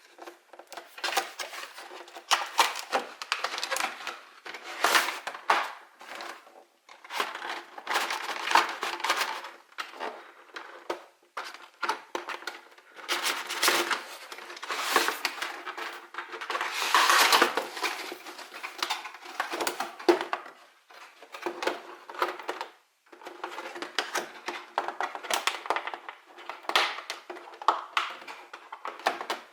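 Plastic and cardboard packaging of a trading card collection box being opened and handled: irregular crinkling and rustling broken by small clicks.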